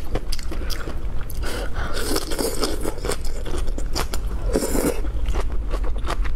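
Close-miked eating sounds: slurping a bok choy leaf and noodles from a soup, with wet chewing and mouth clicks throughout. There are two longer slurps, one about two seconds in and one a little before the end.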